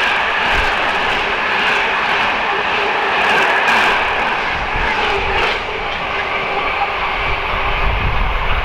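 A train running at the station: loud, steady engine and running noise.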